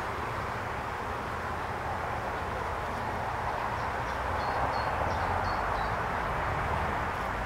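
Honeybees humming steadily around an opened wooden hive as a brood frame covered in bees is lowered back into the box, with a few faint short high squeaks in the middle.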